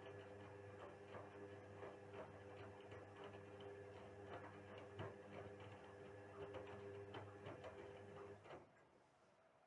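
Indesit WISL 62 front-loading washing machine in its wash cycle: the motor hums steadily as the drum turns, with irregular light clicks. The motor stops about eight and a half seconds in, a pause between drum turns.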